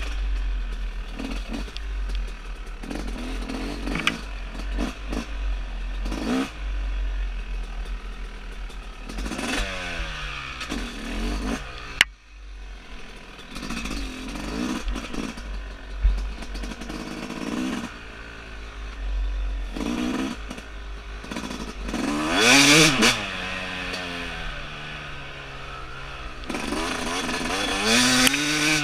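2017 Yamaha YZ250's two-stroke single-cylinder engine being ridden hard, the revs rising and falling over and over as the throttle is opened and rolled off. A sharp click and a brief lull come near the middle.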